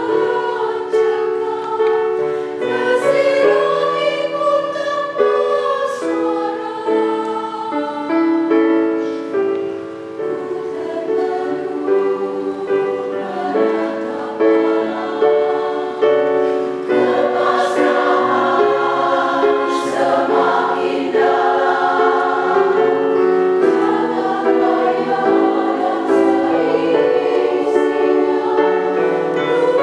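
Women's choir singing in several parts, holding chords that shift from note to note.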